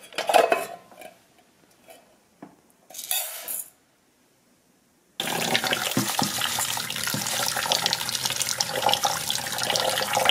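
A few brief rustles of dry rice poured into a rice cooker's inner pot, then, starting abruptly about five seconds in, a kitchen tap running steadily into the pot while the rice is rinsed by hand.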